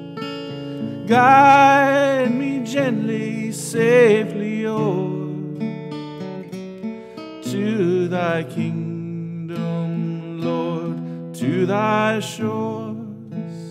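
Acoustic guitar strumming chords of a slow old-time hymn, with a wavering lead melody line over it in several short phrases.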